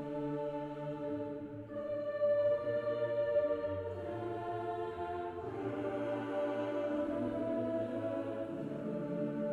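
Slow background music of long held chords that change every couple of seconds.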